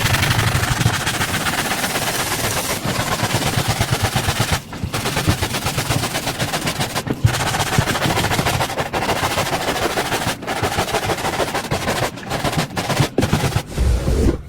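Rug being scrubbed during a deep clean, making a loud, rapid, even rattle of many ticks a second. It breaks off abruptly several times.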